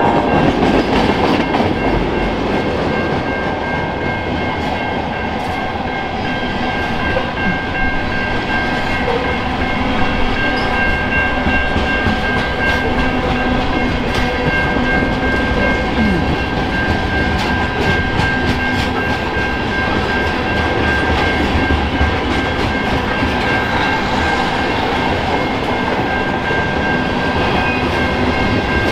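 Freight train cars rolling steadily past a grade crossing, wheels clattering over the rails, with the crossing's warning bell ringing steadily over it.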